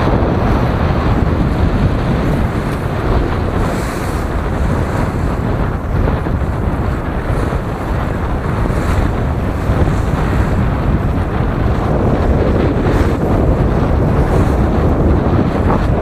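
Strong wind buffeting the microphone over the rush of waves along a sailboat's hull, in gusts near 30 knots. A loud, steady roar of noise throughout.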